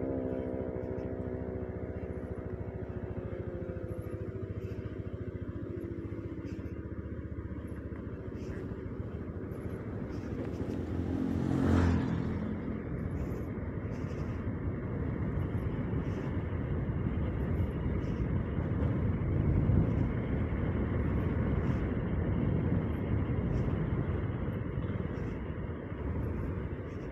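Motorcycle engine running as the bike is ridden along a lane, its note falling over the first few seconds as it slows, then a steady running sound with road noise. A brief loud swell comes about halfway through.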